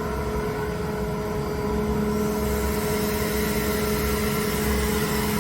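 Kaeser ASD 50 T SFC 25 kW inverter-driven screw air compressor running under load: a steady hum with a constant whine, and a lower tone joining in about two seconds in.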